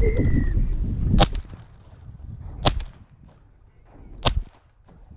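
Three shotgun shots about a second and a half apart, fired at ducks; the first is the loudest. A short steady whistle note sounds just before them.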